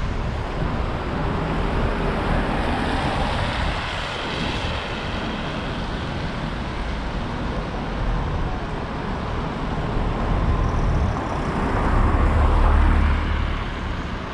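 City street traffic: a steady wash of passing cars, with one vehicle passing close and louder about three-quarters of the way through.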